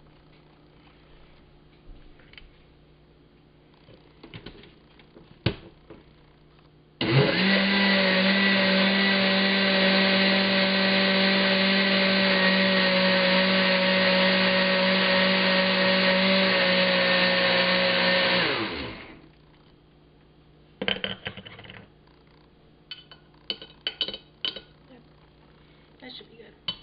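Countertop blender running, re-blending a smoothie of frozen berries, banana and milk to break up the last clumps. The motor starts suddenly about seven seconds in, runs steadily for about eleven seconds, then winds down with a falling pitch; a few clicks and clinks follow.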